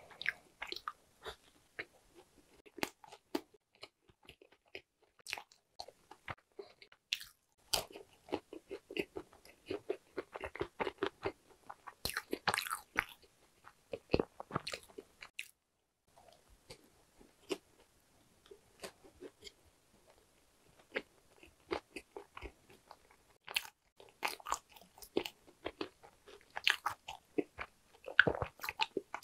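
Close-miked chewing of a whole Lotus-crumb-topped hodu-gwaja (Korean walnut cake), a steady run of small crunches as the crisp crust and large walnut pieces break between the teeth, with a few short pauses.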